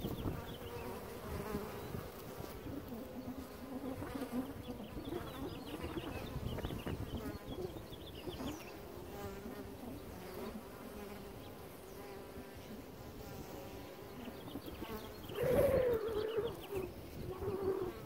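Honey bees buzzing at a hive entrance: many wingbeats overlap in a steady, wavering hum. About three-quarters of the way through, one buzz swells louder and higher, and another follows near the end.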